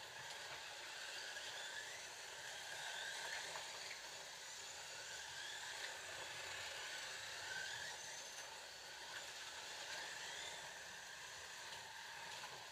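Scalextric slot cars running around the track: a faint steady whir from their small electric motors and pickup braids, with whines that rise and fall in pitch as the cars speed up and brake.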